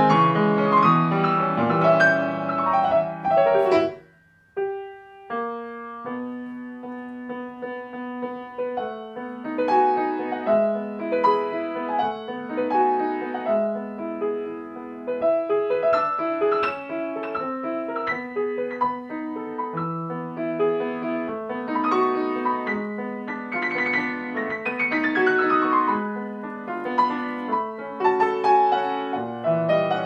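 Solo grand piano playing a classical piece. A fast passage breaks off about four seconds in, a moment of near silence and a few single notes follow, then steady playing resumes, with quick descending runs in the latter part.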